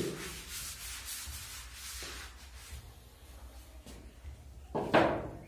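Blackboard duster wiping chalk off a blackboard: repeated rubbing strokes that fade after the first couple of seconds, with a short louder sound near the end.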